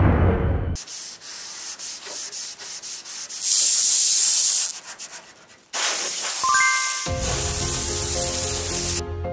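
Hand sanding with a sanding block on the steel side gate of a Subaru Sambar mini truck's bed: quick back-and-forth strokes, then a longer, louder stretch, in preparation for primer surfacer. Music comes in over it in the last couple of seconds.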